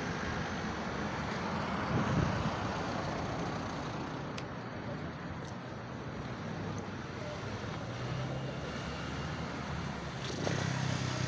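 City street traffic: a steady mix of vehicle engines and tyre noise, swelling a little as vehicles pass about two seconds in and again near the end.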